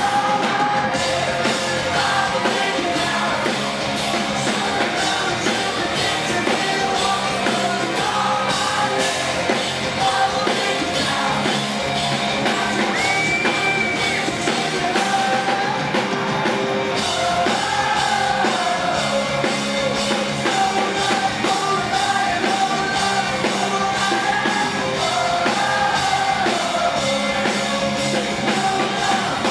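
Live pop-punk band playing a song: lead vocals sung over electric guitars and a drum kit, loud and continuous.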